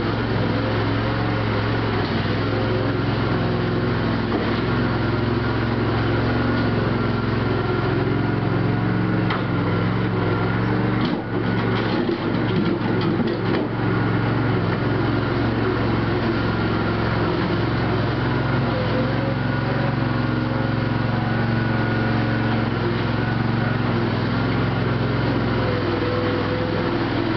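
Engine running steadily at a constant speed, with a brief dip and a few knocks about eleven seconds in.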